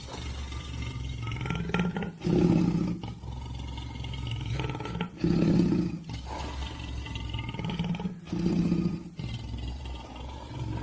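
Lion roaring: three loud, deep roars about three seconds apart, with lower rumbling between them.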